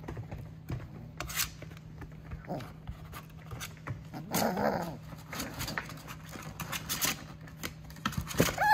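F1 mini goldendoodle puppies playing: scattered light knocks and scrapes of paws on the plastic pool, a short puppy growl about halfway through, and a high whine near the end.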